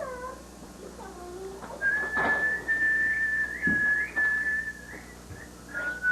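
Someone whistling a long, steady high note broken by small upward slides, then starting a second, slightly lower held note near the end. A few short falling cries are heard just before the whistling.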